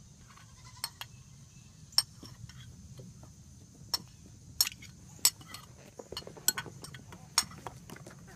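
A bowl of food scraps being knocked and shaken out for chickens: irregular sharp clicks and taps, more frequent in the second half, with faint animal calls underneath.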